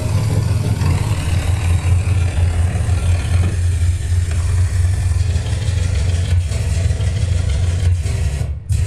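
Loud live electronic music through a PA: a heavy, steady synth bass drone under a dense noisy wash. Near the end the high end cuts out in short rhythmic gaps.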